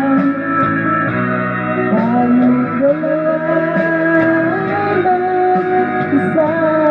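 Instrumental passage of a ballad's backing track: guitar accompaniment under a sustained lead melody that glides between notes.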